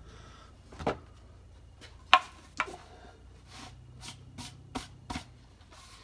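Light knocks and clicks of a plywood panel and hand tools being handled on a wooden workbench. The loudest is a sharp knock about two seconds in.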